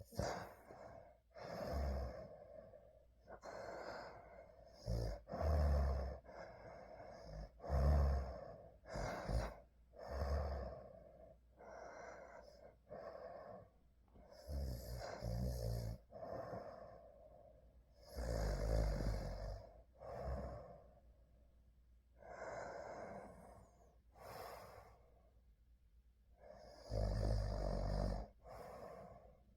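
A sleeping person snoring: uneven breaths every few seconds, several of them with a low rattling snore.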